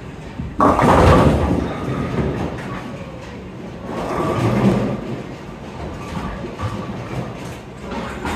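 Storm Spectre bowling ball hitting the pins about half a second in: a sudden crash of pins that dies away over about a second. A lower rumble swells around four to five seconds in.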